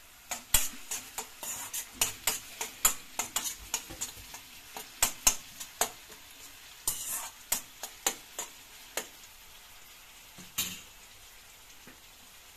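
Steel spoon scraping and knocking against a stainless steel pan as sliced onions are stirred while frying in oil, over a soft sizzle. The strokes come quick and irregular for about nine seconds, with one more near the end.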